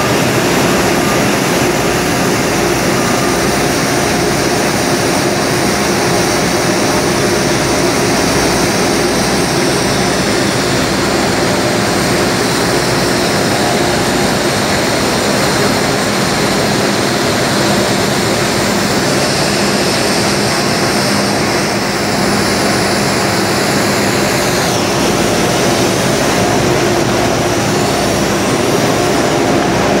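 Aluminium rod continuous casting and rolling line running: a loud, steady machine din with a constant hum from the casting wheel and rolling mill. A high hiss in the noise drops away near the end.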